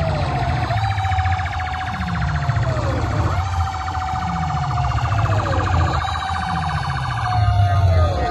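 A siren-style DJ track blasted through a large outdoor competition sound system. A high held tone dips and jumps back up about every two and a half seconds, over deep falling bass sweeps and a fast pulsing buzz.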